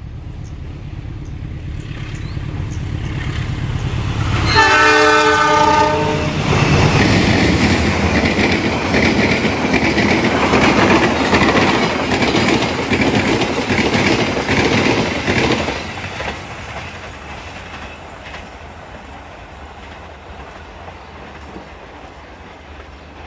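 Lodaya passenger train passing at speed behind its diesel locomotive: a low engine rumble builds as it approaches, then the locomotive sounds one horn blast of about two seconds. The coaches then roll by close with a rapid clickety-clack of wheels over the rail joints, which fades as the train draws away.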